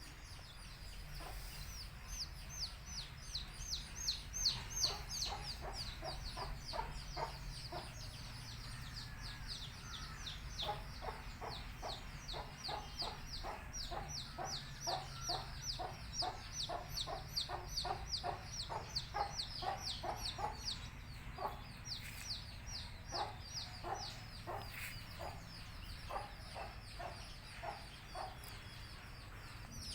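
Country chicken chicks peeping continuously, a dense stream of short, high, falling peeps. From about a third of the way in, a hen clucks in a quick, steady run of low clucks, about three a second, which trails off near the end.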